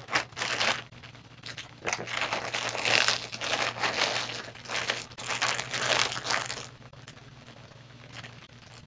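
Thin clear plastic bag crinkling and rustling as it is snipped with scissors and a plush toy is pulled out of it, loudest in the middle; it dies down about seven seconds in.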